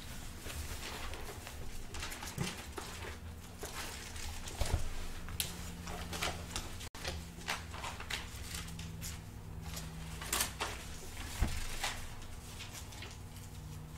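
Pages of a Bible being leafed through at a wooden pulpit: soft, irregular rustles and flicks, with a few light knocks, over a faint steady hum.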